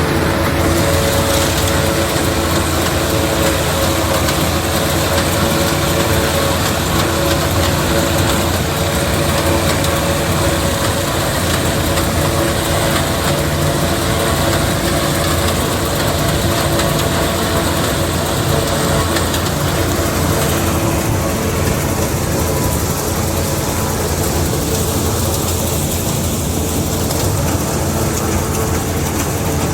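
Tractor-driven corn silage harvesting machinery running steadily: a heavy diesel engine's even drone with a mechanical hiss over it. The hiss eases somewhat about two-thirds of the way through.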